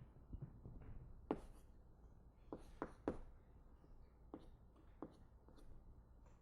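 Faint, irregular taps and scratches of writing on a board, about eight sharp strokes spread unevenly through a low room hum.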